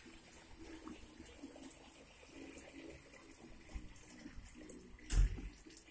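Water pouring from a 5-gallon bucket into a smaller 9-quart bucket, a faint steady splashing. A single short, loud thump comes about five seconds in.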